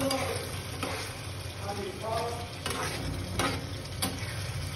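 A metal spatula stirring and scraping thick gravy in a frying pan while it sizzles over the flame, with a few sharp clicks of the spatula against the pan.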